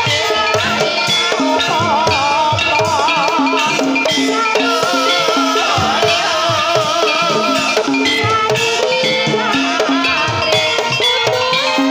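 Javanese kuda kepang (ebeg) dance music: gamelan with drums keeping a steady beat and a melody line with a wavering vibrato over it.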